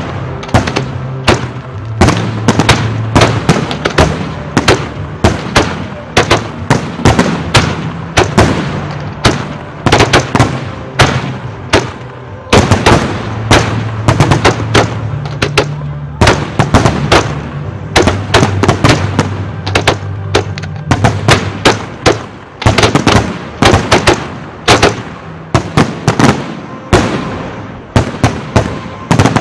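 Fireworks display: aerial shells bursting in rapid, continuous succession, two or three loud bangs a second.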